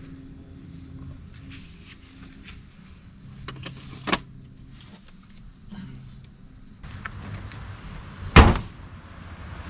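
A few small clicks and a sharp knock, then a single loud thump of a car door shutting about eight seconds in, with crickets chirping steadily in the background.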